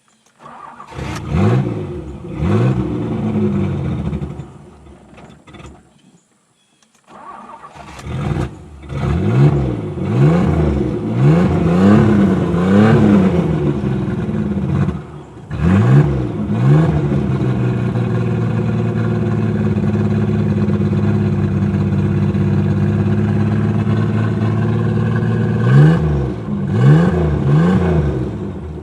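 1985 Chevy S10 Blazer's engine started on a newly fitted ignition switch and revved up and down repeatedly. It dies away about four seconds in and starts again a few seconds later, then holds a steady higher speed for several seconds before more blips near the end.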